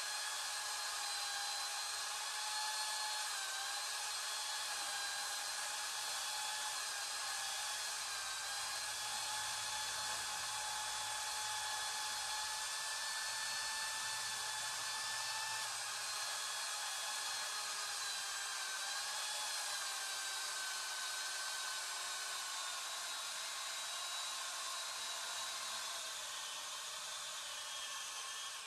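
Chainsaw engine running at high revs with a steady, high-pitched whine, the pitch dipping slightly now and then as it works. It cuts off at the very end.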